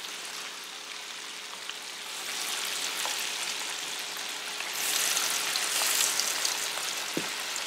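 Potato wedges sizzling as they fry in hot oil in a shallow frying pan. The sizzle gets louder about halfway through, as more wedges go into the oil.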